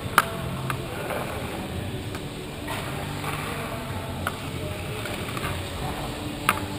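Ice hockey rink ambience heard from the goalie's crease: a steady low rumble of the arena with a few sharp clacks, one loud just after the start, a fainter one about half a second later, one past the middle and another loud one near the end.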